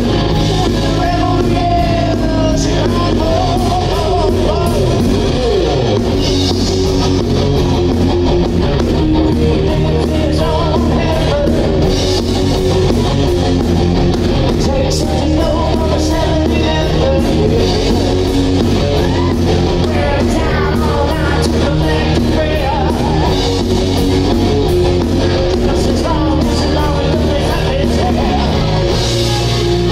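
Live rock band playing loud and steady: a lead singer over electric guitars and a drum kit.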